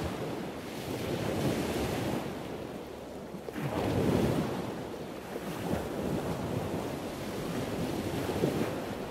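Sea water rushing and splashing past a sailing yacht's hull under sail, with wind buffeting the microphone. The rush swells louder about a second and a half in and again about four seconds in.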